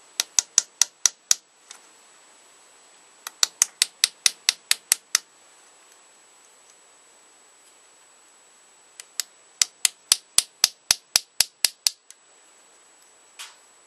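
Hammer tapping on a rivet in a knife handle to knock it out: three runs of quick, sharp taps, about five a second, with pauses between, the last run the longest.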